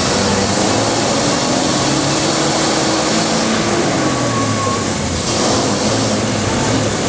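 A non-air-conditioned city bus's diesel engine running, with loud, steady road and traffic noise. The engine's pitch shifts in the middle of the stretch.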